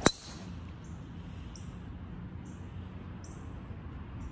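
A golf club strikes a teed golf ball on a tee shot: one sharp crack at the very start. Afterwards a bird's short high chirps repeat about once a second over a steady outdoor background.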